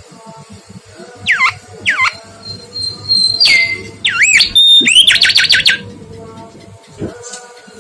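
Mangrove whistler singing a phrase of clear whistles: two notes sliding steeply down, a long steady high whistle, then a quick run of looping notes that rise and fall.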